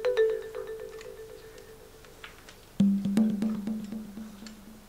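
Background music: a held mid-low note fading slowly, then a lower note entering about three seconds in and fading in turn, with sparse light clicks scattered through it.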